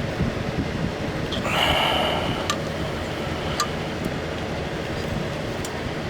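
Hand tools working the AC clutch installer tool onto the compressor hub: a short squeak about one and a half seconds in, then a few light metallic clicks, over a steady low rumble.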